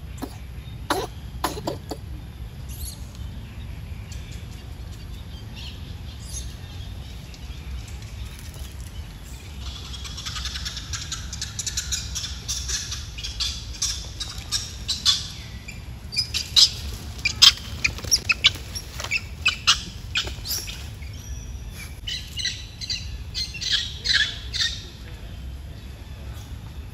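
Forest animal calls: a rapid string of short, high-pitched chirps and squeaks, some gliding downward, starting about ten seconds in and thinning out near the end, over a low steady rumble.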